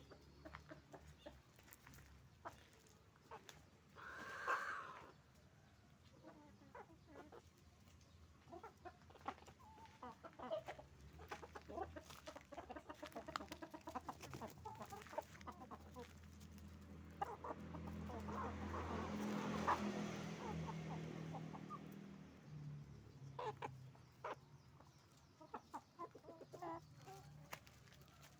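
A flock of hens clucking with many short, scattered calls, and a louder drawn-out call about four seconds in. A broader swell of sound with a low hum builds and fades near the middle.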